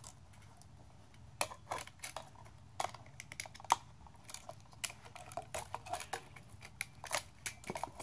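Scattered small clicks and scrapes of a utility knife cutting the sheathing off nonmetallic electrical cable, with the wires handled in a plastic electrical box.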